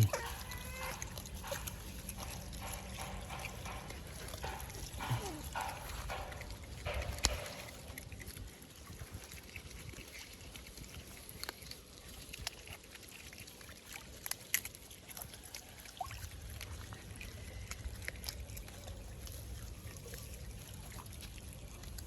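Otter making short squeaks and grunts through the first seven seconds or so, with scattered clicks and knocks; quieter after that.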